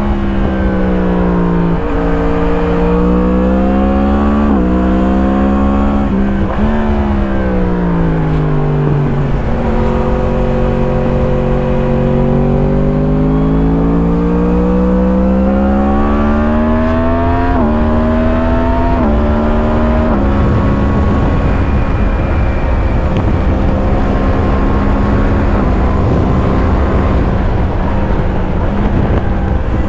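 2017 Yamaha MT-10's crossplane inline-four engine through an Akrapovič slip-on exhaust, heard onboard while riding: the engine note climbs and falls with the throttle, with sudden drops in pitch at gear changes. For most of the last ten seconds the engine note sinks into a steady rush of noise before it comes back steady near the end.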